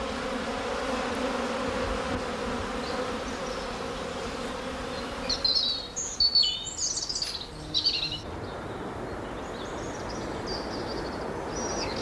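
Honeybees buzzing around blossoming trees in a steady drone that eases after about five seconds. Small birds chirp in quick high runs from about five seconds in.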